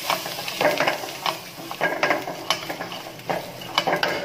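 A steel ladle scrapes and clicks irregularly against a wok while chopped garlic, mustard seeds and curry leaves sizzle in hot oil during tempering.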